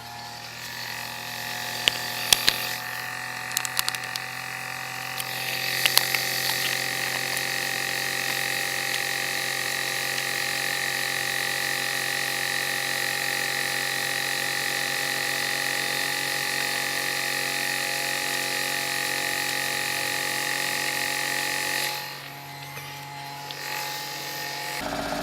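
Autozam AZ-1's 660 cc three-cylinder turbo engine idling with a steady buzzing rattle from around the gearbox, a noise that comes mostly on a cold engine and stops when the clutch is pressed; the owner wonders whether the gearbox needs an overhaul. A few sharp clicks in the first seconds, and the sound drops away for about three seconds near the end.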